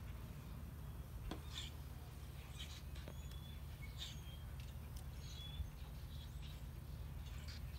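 Quiet outdoor ambience with faint, scattered small-bird chirps over a low steady hum, with a few soft clicks.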